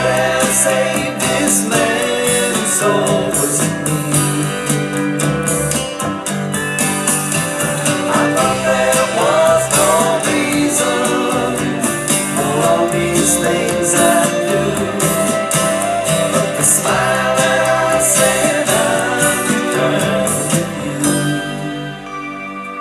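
Country-rock song playing, in a guitar-led instrumental passage with gliding guitar lines; the level drops off near the end.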